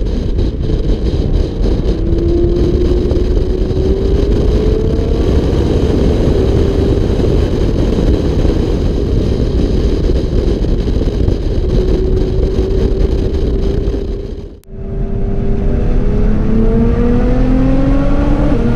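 Nissan GT-R R35's twin-turbo V6 with a full HKS exhaust pulling hard on a race track, its pitch climbing slowly over several seconds under a loud rush of wind and road noise. The sound drops out abruptly about fifteen seconds in and comes back with the engine pitch rising again.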